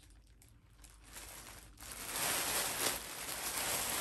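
Plastic packaging crinkling as it is handled, pulled open around a handbag; it starts faintly and turns into steady crinkling about two seconds in.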